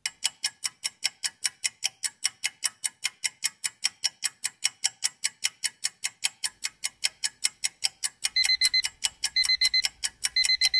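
Countdown-timer sound effect: steady clock ticking, about five ticks a second, joined about eight seconds in by alarm-clock beeping in short bursts about once a second as the countdown runs out.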